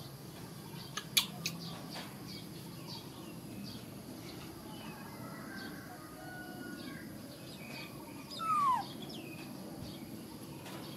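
Faint scattered chirps over a steady low background, with a few sharp clicks about a second in. About eight and a half seconds in comes one short, loud high call that falls in pitch.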